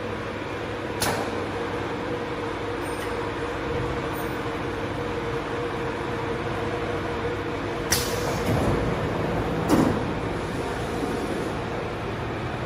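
Melt blown filter cartridge end cap welding machine running: a steady hum with a held mid tone, broken by sharp clacks about a second in and twice more near the end, the first of those followed by a short hiss of air, as its pneumatic clamps and slides move.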